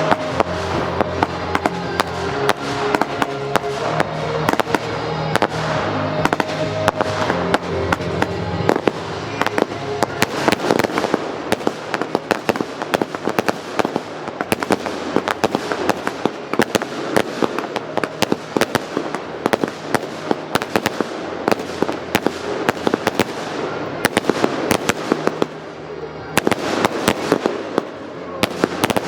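Fireworks display: a dense, rapid barrage of bangs and crackling shots. Music plays beneath it for about the first nine seconds, then fades away.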